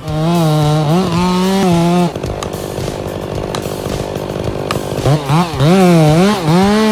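Chainsaw running at high revs, its pitch repeatedly dipping and recovering as the chain bites into the wood. For a few seconds in the middle the sound turns rougher, without a clear pitch.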